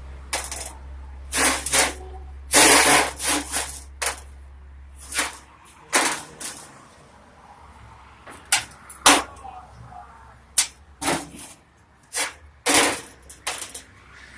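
Arc welding on a steel jerk pan in a series of short, irregular bursts, like tack welds struck one after another, over a low steady hum that stops about five seconds in.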